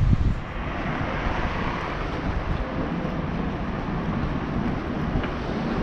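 Steady street traffic noise of a city street, with a vehicle passing and a low rumble at the very start.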